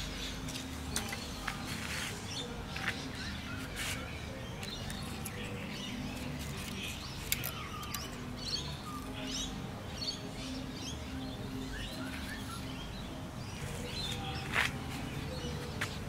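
Birds chirping and calling in short scattered notes, over a low steady hum, with a few light handling clicks.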